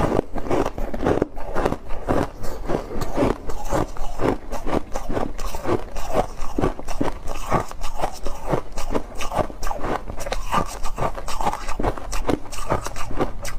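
Refrozen shaved ice being bitten and chewed close to the microphone: a steady run of sharp crunches, several a second.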